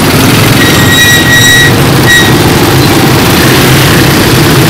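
Loud Honda Win 100 single-cylinder four-stroke motorcycle engine running while riding slowly through dense traffic, mixed with the engines of surrounding scooters and a truck. A high tone sounds for about a second starting about half a second in, and a short one follows about two seconds in.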